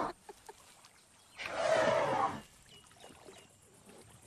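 A coracle paddle dipping and splashing through river water once, a noisy rush about a second long about a third of the way in.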